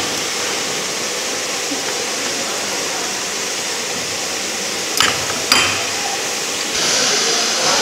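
Two sharp metallic clinks about half a second apart, about five seconds in, as the second-speed steel gear is fitted onto the main shaft of a Mercedes G221 truck gearbox. A steady hiss runs underneath and grows louder near the end.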